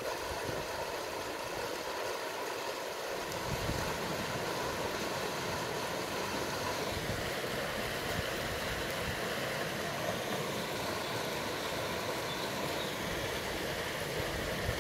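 Steady rushing of a small cascade of stream water pouring into a rock pool, with a low rumble joining about three and a half seconds in.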